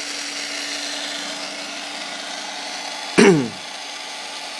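Small electric motor of an RC car running with a steady whine and hiss. About three seconds in, a brief loud sound drops sharply in pitch.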